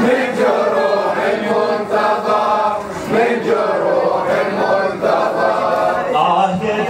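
Male reciter chanting an Arabic mourning lament over a microphone, with a group of men's voices chanting along.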